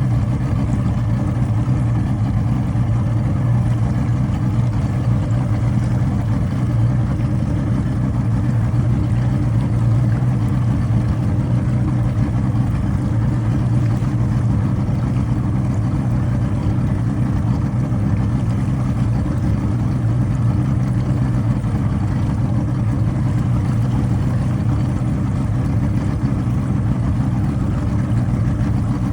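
An engine idling steadily with an uneven, rough running note, misfiring after it had stalled.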